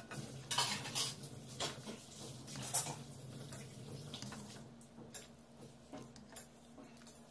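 Metal ladle clinking and scraping against an aluminium pressure cooker and a china bowl as cooked chickpea curry is served, with several sharp clinks in the first three seconds and lighter taps after.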